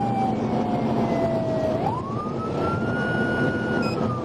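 Police cruiser's siren wailing: the pitch slides slowly down, sweeps up about two seconds in, holds high, then starts falling again near the end. Underneath it is the steady road and engine noise of the cruiser at high speed.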